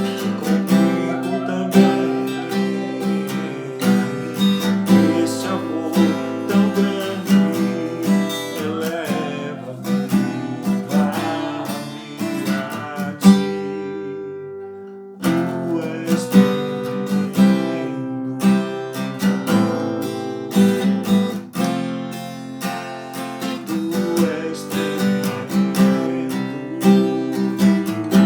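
Acoustic guitar strummed in a steady rhythm, playing worship music. About 13 seconds in, a chord is left to ring and fade for about two seconds, then the strumming resumes.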